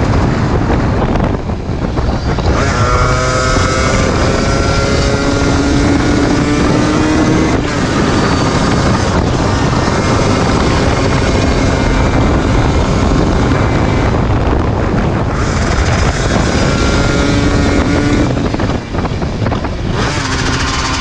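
Yamaha DT 125 single-cylinder two-stroke engine pulling under load while riding, its pitch climbing steadily through each gear with short breaks at the shifts and throttle lifts. Heavy wind buffeting on the microphone runs under it.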